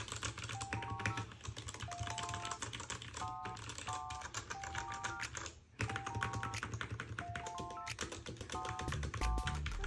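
Rapid, steady typing on an RK68 mechanical keyboard with lubed Akko Jelly Black linear switches: a dense run of keystroke clicks that pauses briefly a little past halfway. A simple background melody plays along with it.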